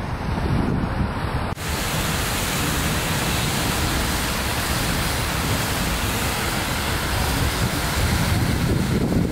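Wind on the microphone with street traffic noise, then, after a sudden cut about a second and a half in, the steady rushing hiss of a large fountain's many water jets splashing into its basin.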